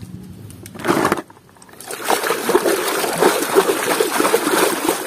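A toy car being swished by hand through muddy water in a plastic basin: a brief splash about a second in, then continuous splashing and sloshing from about two seconds in.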